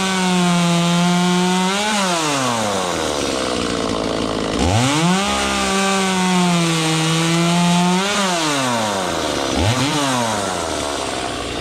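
Two-stroke chainsaw engine revved to high speed and held for about two seconds, dropping back to idle. It revs up again about four and a half seconds in and holds for over three seconds, then gives one short blip of the throttle near ten seconds before settling back to idle.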